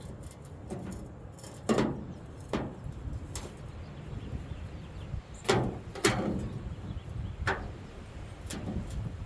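Sheet metal knocking and clanking: six sharp knocks spread over about seven seconds, each ringing briefly, over a steady low rumble, as the fuel-door patch panel is worked and fitted into the truck bed.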